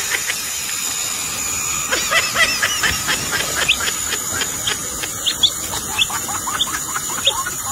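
Domestic chick peeping: a quick run of short, high cheeps, several a second, thickest from about two seconds in, over a constant hiss.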